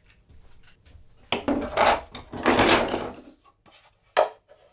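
Wooden box slid and shifted across a wooden workbench top, wood scraping on wood in two loud scrapes in the middle, then a few short knocks near the end.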